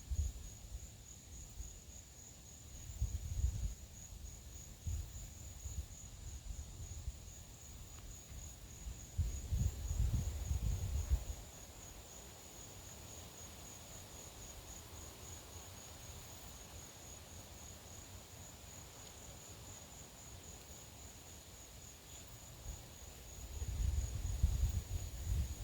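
Gusts of wind buffeting the microphone in deep rumbles, about three seconds in, again around ten seconds and near the end, over a steady high, finely pulsing insect drone.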